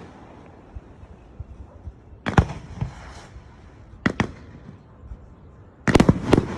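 Fireworks going off: scattered sharp bangs, a pair a little over two seconds in, another pair around four seconds, then a quick cluster of bangs near the end.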